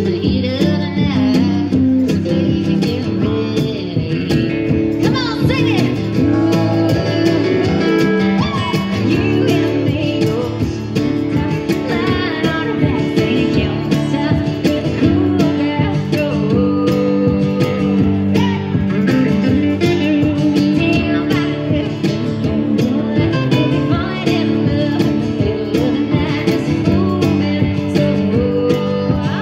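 Live country song: a woman singing lead over a strummed acoustic guitar, with a tambourine keeping a steady beat.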